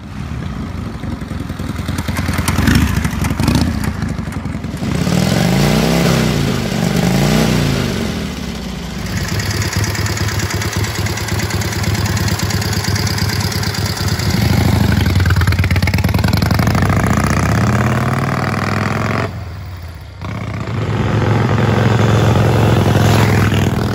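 Indian 101 Scout's 0.75 liter V-twin motorcycle engine running, rising and falling in pitch several times as the throttle is opened and closed, with a brief dip in loudness about twenty seconds in.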